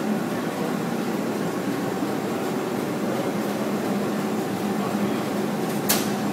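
Komori Lithrone LS 529+C sheetfed offset printing press, five colour units and a coater, running: a steady mechanical whir with a constant hum. A single sharp click comes near the end.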